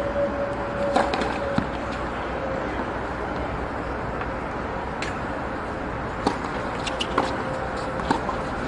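Tennis balls being struck by rackets and bouncing on a hard court: several sharp pops at irregular intervals over the steady murmur of a crowd of spectators.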